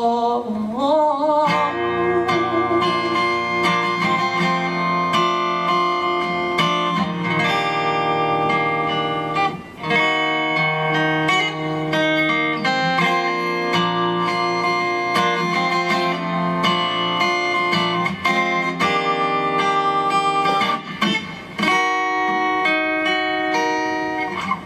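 Guitar playing the song's instrumental outro: many plucked notes over held chords. A sung note with vibrato fades out in about the first second.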